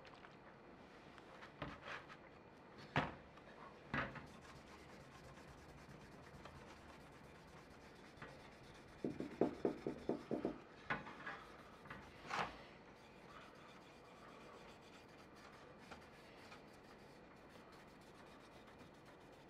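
A cloth rag rubbing spirit-based mahogany stain onto a wooden saw handle: faint, with a quick run of about six rubbing strokes about halfway through. A few separate knocks come near the start and shortly after the strokes.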